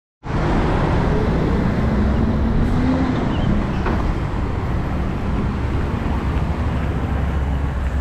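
Steady low rumble of road traffic, with a faint engine note rising slightly two to three seconds in.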